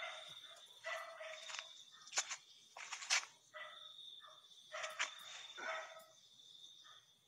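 Faint dog barking, a handful of short calls a second or so apart, over a steady high-pitched trill that stops for a couple of seconds and then resumes. Two sharp clicks about a second apart near the middle are the loudest sounds.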